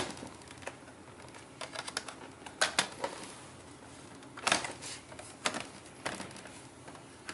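Scattered light clicks and taps of a laptop's plastic case being handled and pried at its edges and corners, irregular and a dozen or so in all.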